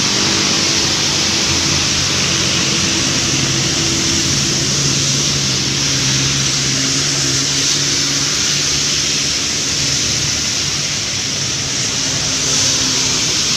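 Steady hiss of heavy rain and tyres on a wet road as traffic passes, under background music holding long low notes.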